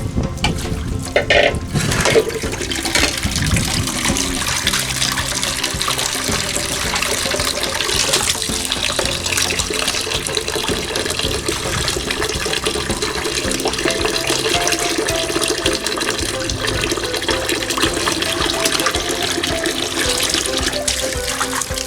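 Water splashing and sloshing as fish are rinsed by hand in a basin, with a few knocks in the first couple of seconds. Background music with a simple melody comes in faintly under it about two-thirds of the way through.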